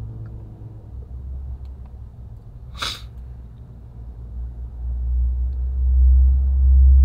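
Steady low rumble inside a car cabin, with one brief hissing rustle about three seconds in. From about five seconds a deep bass swell builds up and becomes the loudest sound.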